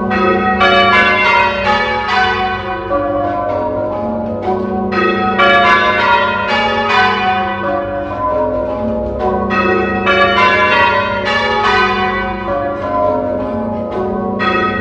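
Church tower bells in change ringing: the bells strike one after another in quick succession, row after row, each ringing on over the next.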